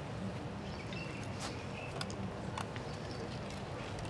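Quiet outdoor ambience: a steady low hum with a few faint clicks and taps, and a couple of short high chirps.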